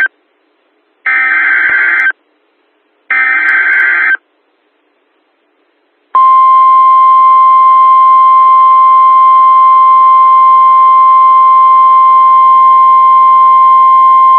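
Two more SAME digital header bursts, each about a second long and a second apart, the screechy data tones that open an Emergency Alert System broadcast. About six seconds in, after a brief silence, the steady NOAA Weather Radio 1050 Hz warning alarm tone comes on and holds unbroken.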